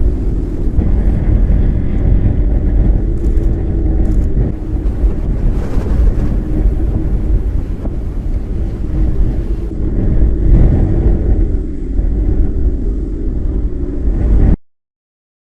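Loud, steady low rumble of strong wind buffeting the microphone in tornado storm footage. The sound drops out to silence for about a second near the end.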